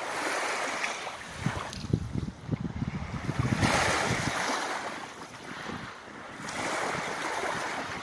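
Wind gusting on the microphone, rising and falling in three gusts, with rumbling buffets from a couple of seconds in, over small waves lapping at the water's edge.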